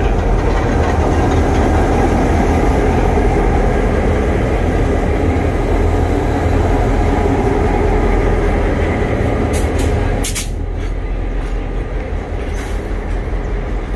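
Two coupled Queensland Rail 1720 class diesel-electric locomotives pass slowly at close range, their engines running with a steady low rumble. About ten seconds in the engine sound drops away as the passenger carriages roll by, with a few sharp clicks.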